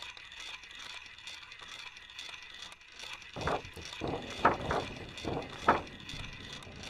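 Sound effect of bottle jacks being worked to lift a floor: a faint rapid ticking, then from about halfway a run of five short, louder mechanical strokes.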